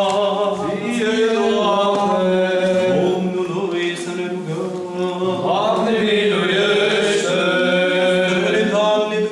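Orthodox liturgical chant sung by voices in the church, with a melody moving over a steady low note held underneath.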